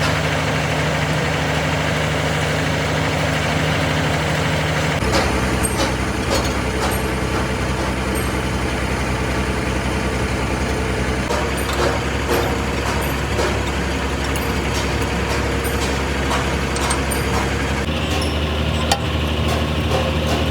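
A heavy engine running steadily, with small metallic clicks and knocks over it. Its tone shifts abruptly about five, eleven and eighteen seconds in.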